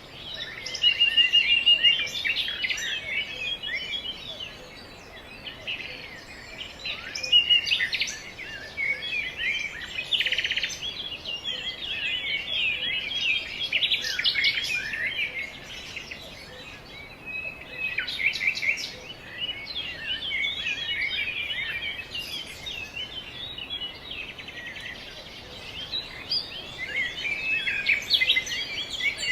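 A flock of small songbirds chirping and twittering: a dense, overlapping stream of short high calls and trills, with louder spells several times along the way.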